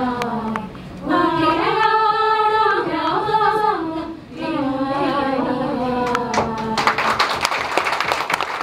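A small group of women singing a Malayalam song together into one microphone, holding the last notes of the final phrase. About seven seconds in the singing stops and applause begins.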